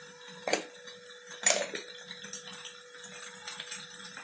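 Two light knocks of kitchen bowls and containers being handled, about a second apart, followed by faint scattered clicks over a steady low hum.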